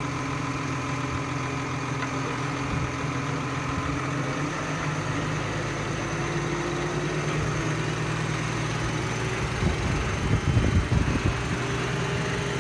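New Holland T7.200 tractor's diesel engine running steadily, driving a PZ Fannex 500 four-rotor tedder through the PTO with its rotors spinning. A few louder low rumbles come about ten seconds in.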